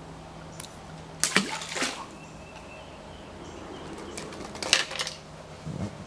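Water splashing in two short bursts about three seconds apart, over a faint steady low hum, as a caught sunfish is handled and let back into the stream.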